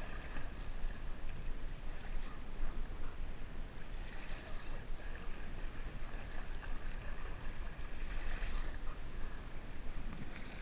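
Steady low rumble and hiss of creek water and wind, picked up by an action camera strapped to a dog standing in a shallow stream.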